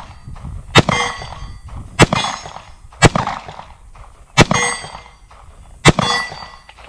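Five shots from a Smith & Wesson M&P Shield .45 ACP pistol, about one to one and a half seconds apart, each followed by the ringing clang of a steel target being hit.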